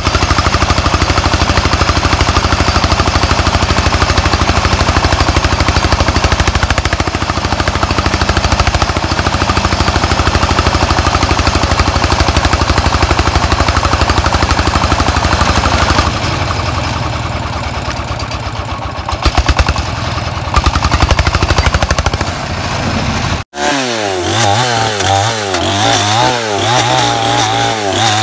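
Single-cylinder diesel engine of a công nông tractor-truck running steadily while its dump bed tips a load of firewood, with louder irregular noise a few seconds before the end. After an abrupt cut, a chainsaw revs up and down repeatedly as it cuts through a branch.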